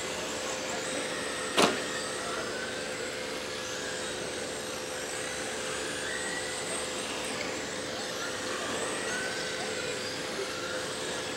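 Several electric RC race cars lapping a dirt oval, their motors whining and rising and falling in pitch as they speed up and pass. A sharp knock about one and a half seconds in is the loudest sound.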